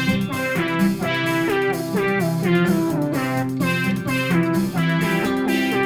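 Background music led by an electric guitar playing plucked notes in a steady, repeating rhythm.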